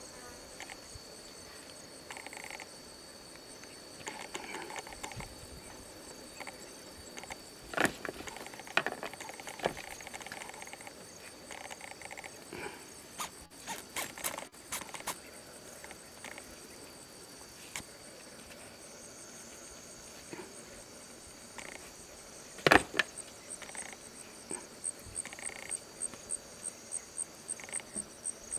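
Insects trilling steadily in high, continuous tones, one of them turning into a regular pulsing chirp, about two or three pulses a second, in the last few seconds. A few sharp knocks cut through it, the loudest about 8 seconds in and again about 23 seconds in.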